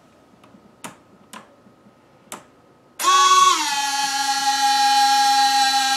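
Tarot T-series retractable landing gear's electric retract motors whining as the legs swing to the up position. The steady, high whine starts suddenly about halfway through, drops slightly in pitch after half a second, then holds. A few soft clicks come before it.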